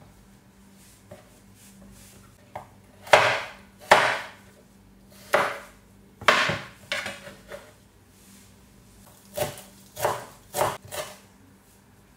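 Kitchen knife chopping salad vegetables on a cutting board: a dozen or so uneven knocks, coming in irregular groups.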